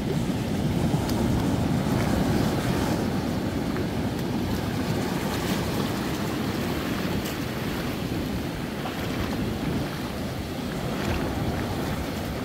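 Sea surf breaking over rocks and washing across a rocky shore shelf: a steady rush of foaming water.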